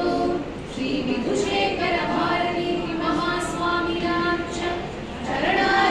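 Women singing a devotional hymn of salutation to the guru, with long held notes.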